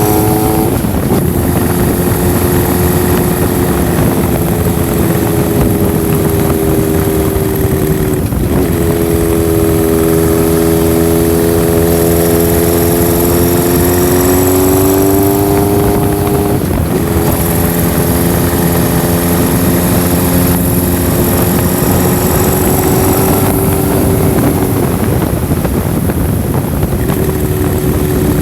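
Honda CB1000SF's inline-four engine and exhaust running under way. The engine note slowly rises and falls with the throttle, with a few sudden dips in pitch.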